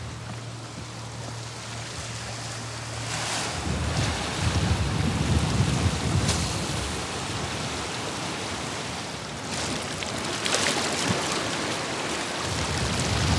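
Wind buffeting the microphone over the wash of sea on a rocky shore. The gusts swell a few seconds in and again near the end.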